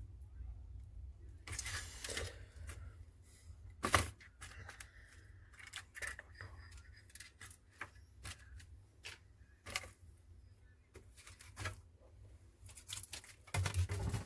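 Irregular clicks, taps and short scrapes of small hand tools and phone parts being handled during a phone screen replacement, with one sharper click about four seconds in, over a low steady hum.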